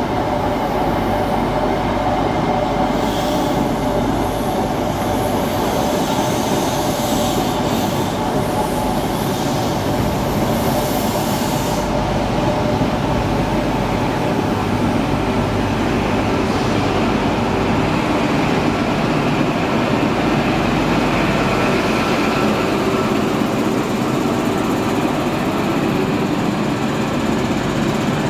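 Mark 3 coaches of an InterCity 125 High Speed Train rolling slowly past on the rails: a continuous rumble with a steady drone, the higher hiss easing off about halfway through.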